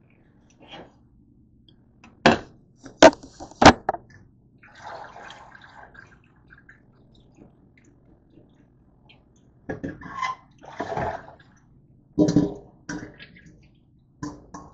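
Objects being handled: three loud sharp clacks in quick succession, then bouts of splashy, liquid-like noise and a few more knocks near the end.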